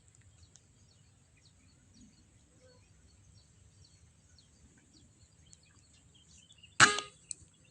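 Quiet outdoor background with faint bird chirps, then near the end a single sharp air rifle shot with a short ring after it.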